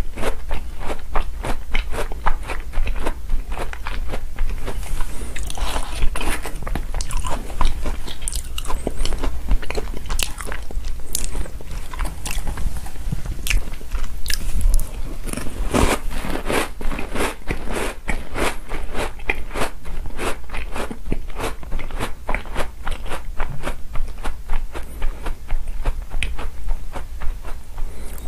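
Close-miked chewing of chocolate cookies soaked in chocolate milk: a dense run of crunchy, crackly mouth clicks, steady throughout.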